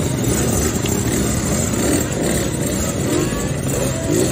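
Many motorcycle engines, largely two-strokes, running together at idle, with engines revving up near the end as bikes pull away.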